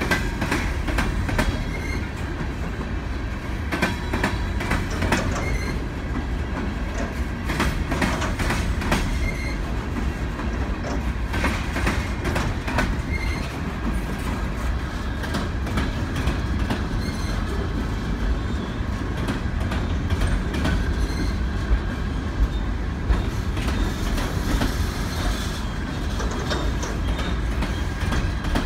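Freight train of coal hopper cars rolling past at restricted speed: a steady rumble of steel wheels on rail, with clusters of clacks as the wheels cross rail joints and a faint wheel squeal.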